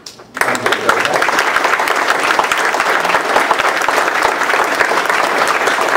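An audience applauding, many hands clapping together; it starts a moment in and runs on steadily.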